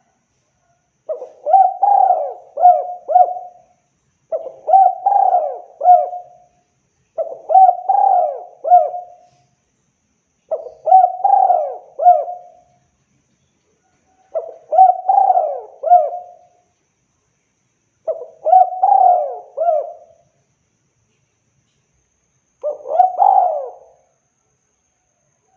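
Spotted dove cooing its song: seven phrases of several coos each, about one every three and a half seconds, with silence between them.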